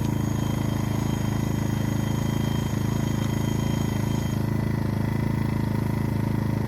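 A-iPower SUA1500i 1500-watt gasoline inverter generator running steadily with a low, even hum. A faint high whine drops out about four seconds in.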